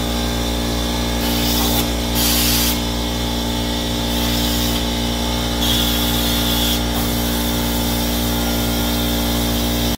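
Air-fed undercoating spray gun hissing in several short bursts as Krown rust-inhibitor oil is sprayed onto a truck's underbody, over a steady mechanical hum.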